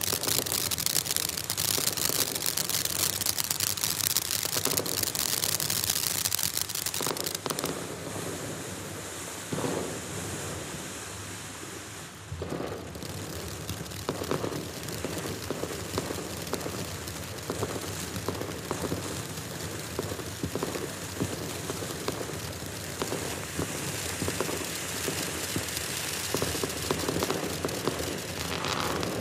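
Black Cat 'Cat Fight' ground fountain firework spraying sparks with a steady hiss and rapid crackling pops. It is loudest for the first seven seconds, falls off briefly about twelve seconds in, then keeps crackling.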